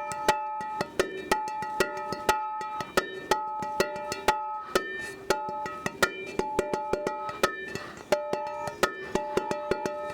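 A frying pan played as a percussion instrument, struck with a stick in a quick, steady rhythm, ringing metallic tones at a few different pitches.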